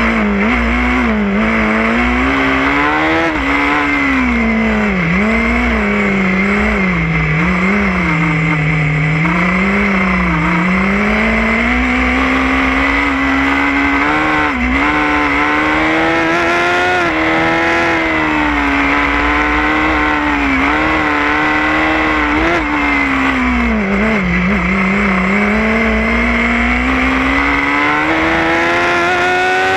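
A Formula SAE race car's engine heard from on board, revving up and down as the driver lifts and gets back on the throttle through the cone-lined corners, with several quick dips early on and a long steady climb in pitch near the end. A steady high whine runs underneath the engine note.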